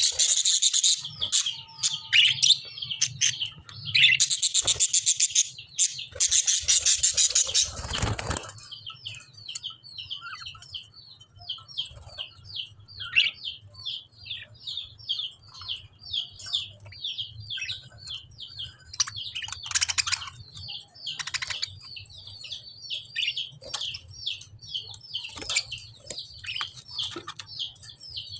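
Caged pet lovebirds: loud, harsh bursts of bird noise for the first eight seconds or so, then a long run of quick, high chirps, several a second, over a faint low hum.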